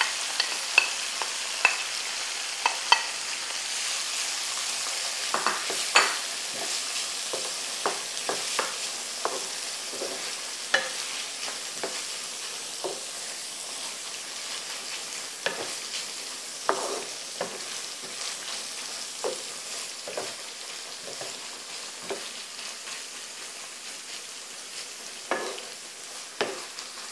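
Crumbled tofu and nori frying in garlic oil in a pan, a steady sizzle that slowly dies down, with scrapes and clinks of utensils stirring it and tapping against the pan and bowl. A few of the clinks in the first seconds ring.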